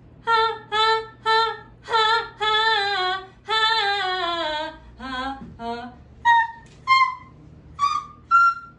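A woman singing without accompaniment into a handheld microphone. It opens with a few short notes, then two long held notes with vibrato, the second sliding down in pitch, then short notes that jump higher near the end.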